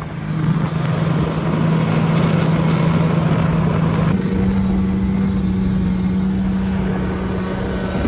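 Snowmobile engine running at a steady speed; its pitch steps up about halfway through.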